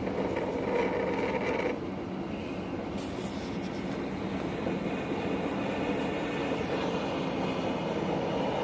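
An engine running steadily: a continuous rumble with faint steady tones through it.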